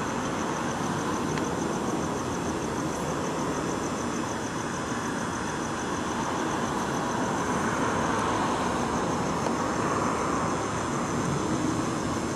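Steady road traffic and idling vehicle engine noise, with a faint, high, rapidly pulsing tone running through it.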